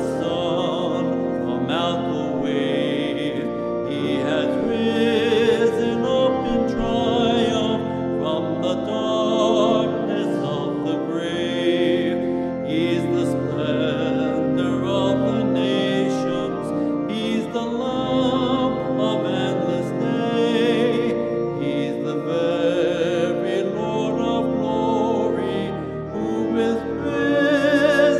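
A hymn sung with vibrato over sustained instrumental accompaniment.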